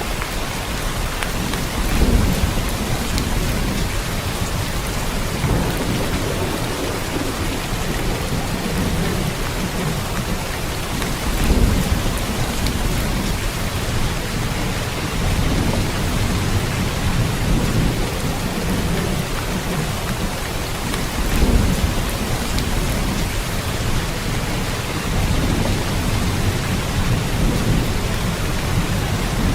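Steady rain hissing evenly, with low rumbles of thunder swelling up about every ten seconds.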